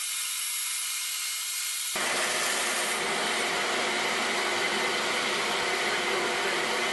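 Delta 14-inch bandsaw running, its blade ripping a thin slice off a teak board against the fence. About two seconds in the sound abruptly turns fuller and louder, a steady running noise with a few steady tones in it, as the board is pushed through and the cut finishes.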